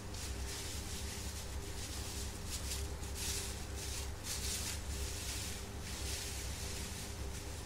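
JR East 719 series electric train heard running from on board: a steady low rumble with a hum of machinery, and a hissy rushing of wheels on rail that swells in the middle.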